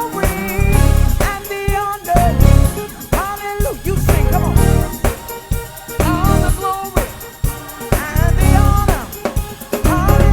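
Live gospel-funk band playing: electric bass, drum kit, keys, organ, guitar and saxophone. Heavy bass-and-drum hits come in and drop out every second or two, with sliding melodic lines above.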